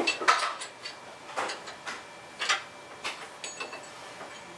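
A handful of separate metallic clinks and knocks, some ringing briefly, as parts and tools are handled at a lathe while a workpiece is taken off.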